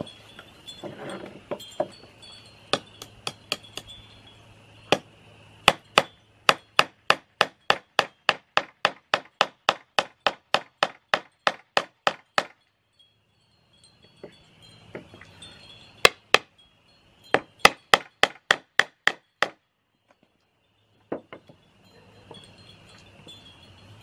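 Claw hammer driving nails into old weathered cedar shingle boards: a few scattered blows, then a fast run of about twenty strikes at around three a second, a pause, and a second shorter run of about eight. Wind chimes ring faintly between the runs.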